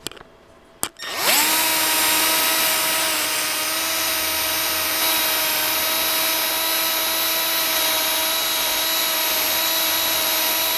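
Handheld power drill, after two short clicks, spinning up about a second in and running steadily at constant speed as its bit widens a connector hole in the slip-ring assembly so a larger connector will fit.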